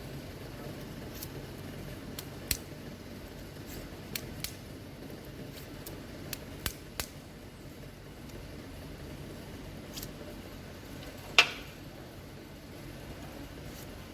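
Scattered light metallic clicks and taps from spark plugs and a gap gauge being handled while the plugs' electrode gap is set, with one louder click about eleven seconds in, over a steady low hum.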